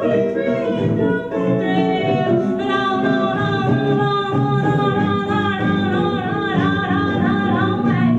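A woman singing a melody with held notes over guitar accompaniment.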